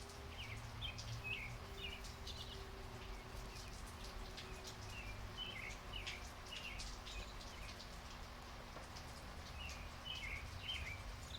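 Light rain falling steadily, with scattered drops ticking on a surface. Short bird chirps come in three bursts: near the start, in the middle, and near the end.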